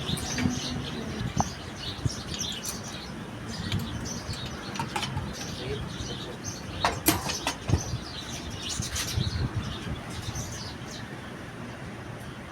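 Small birds chirping repeatedly in the background over a steady low hum, with a few sharp clicks or knocks about seven seconds in.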